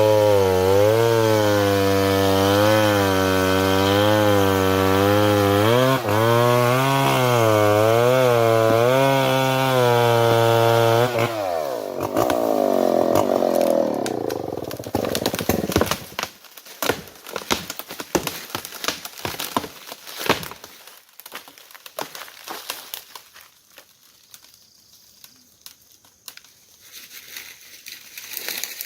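Chainsaw cutting into a tree trunk, its engine pitch wavering up and down under load, then falling away as the throttle is released after about eleven seconds. A run of sharp cracks and snaps of wood follows, with one loud crack in the middle, and grows quieter toward the end.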